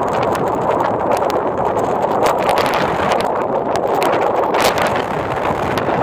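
Storm-force blizzard wind, around 90–100 km/h, blasting the microphone in a loud, steady rush, with scattered sharp crackles through it.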